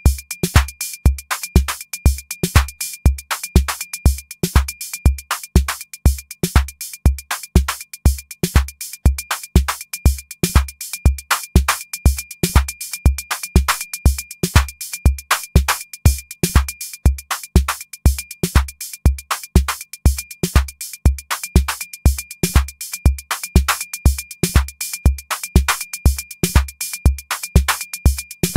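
Electronic drum machine pattern triggered over MIDI by a step sequencer: a kick drum about twice a second with crisp hi-hat-like clicks between, and some hits accented louder than others as the accent steps are played in.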